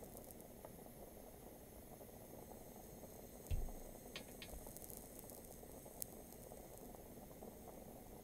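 Torch flame blowing steadily on a painted figurine as its surface bubbles and chars, with faint crackling. A single low thump comes about three and a half seconds in, followed by a few sharp ticks.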